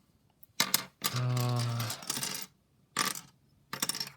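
Small plastic pieces of a disassembled 5x5x5 Rubik's cube clicking and clattering against each other and the table as they are picked up and set down, in a few separate bursts of sharp clicks. A short hum of the voice comes about a second in.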